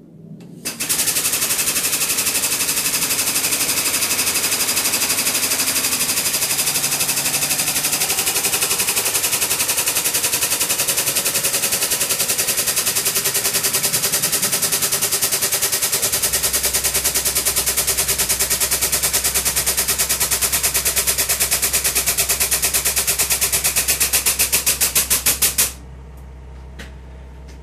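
Air-over-hydraulic bottle jack on a shop press running its air pump with a loud, rapid rattling chatter for about 25 seconds, driving the ram to press a radius arm bush. Just before it cuts off, the pulses slow and spread apart as the load builds. A low steady hum starts about halfway through and continues after.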